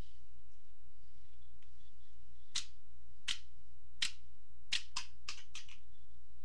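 A series of about eight sharp clicks and taps, a few close together around five seconds in, as small plastic toy parts and screws are handled and set down during disassembly, over a steady low electrical hum.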